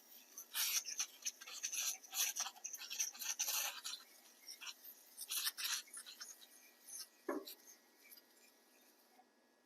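Aerosol can of foaming coil cleaner spraying into an air-conditioner condenser coil in short, irregular hissing bursts, then a single low knock about seven seconds in.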